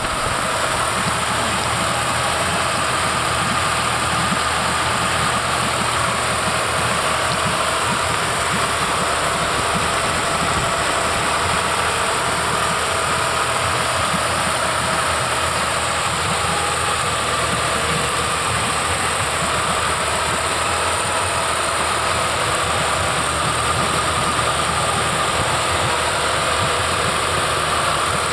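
Twin Honda 200 hp four-stroke V6 outboard engines running steadily with their cowlings off, an even mechanical engine sound.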